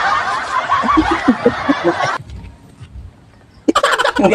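Crowd laughter, many voices at once, that cuts off suddenly about two seconds in; after a short pause a second burst of quick, pulsing laughter starts near the end.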